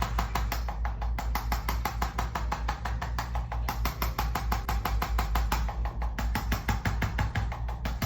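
Arthrostim handheld adjusting instrument firing a rapid, even train of taps, roughly ten a second, over a steady low hum, delivering percussive thrusts to the mid-back.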